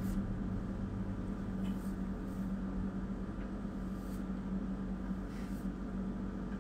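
A scalp being shaved close to the skin: a few faint, brief scraping strokes over a steady low hum.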